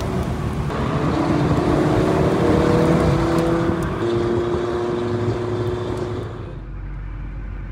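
Audi RS3's turbocharged five-cylinder engine heard from inside the cabin under acceleration, climbing in pitch with a break about a second in and again about four seconds in. It then holds steady and eases off about six seconds in, going quieter over road noise.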